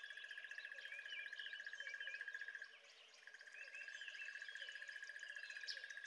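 Faint outdoor ambience of small birds chirping, over a steady, rapid trill that drops out briefly about halfway through.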